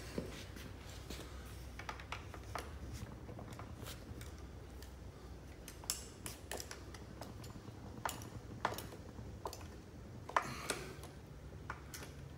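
Irregular light clicks and metallic taps of a 6 mm Allen driver working the motorcycle's seat bolts as they are tightened down.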